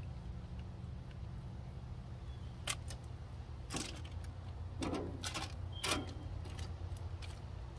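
A kitchen knife blade scraping and tapping over a fish fillet and the paper beneath it as seasoning is spread, several short scrapes, the loudest about five to six seconds in, over a steady low rumble.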